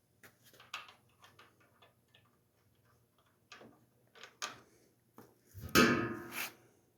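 Light clicks and taps from parts and screws being handled during reassembly of a top-load washing machine, then a louder clatter lasting about a second near the end.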